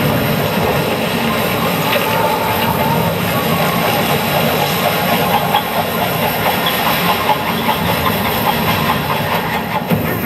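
Loud, steady rushing noise from the projection-mapping show's soundtrack on loudspeakers, easing off slightly near the end.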